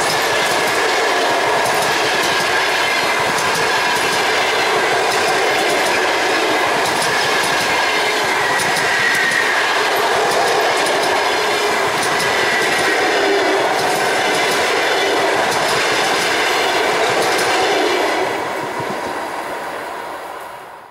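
Passenger coaches of a long-distance express train rolling past close by at speed: a steady loud rumble and clatter of wheels over the rail joints, with a faint thin wheel squeal. The sound dies away over the last few seconds as the end of the train passes and recedes.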